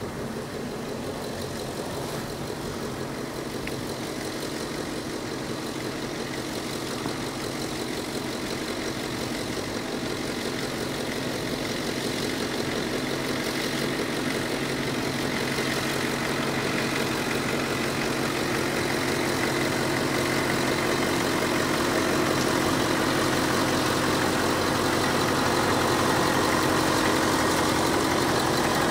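Audi SQ7's V8 diesel engine running at low revs as the SUV creeps along a muddy track, growing steadily louder as it approaches and comes alongside.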